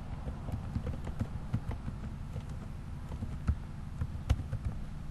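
Computer keyboard keys clicking at an irregular pace as text is typed, over a steady low hum.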